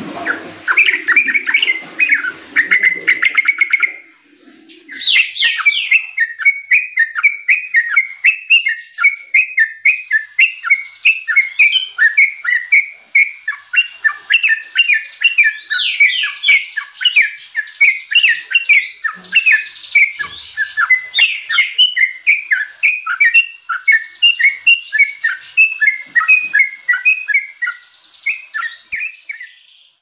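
Yellow-vented bulbul (trucukan) singing a long, fast run of bubbly, chattering notes, several a second, with a short break about four seconds in.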